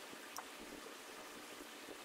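Faint steady room hiss with one light metallic click about half a second in, from the old steering rack being shifted by hand as it is worked out of the van.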